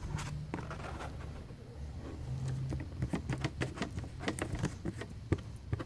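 Plastic spreader scraping and tapping on cardboard while mixing thick epoxy putty with its hardener, in quick irregular strokes that grow busier about halfway through.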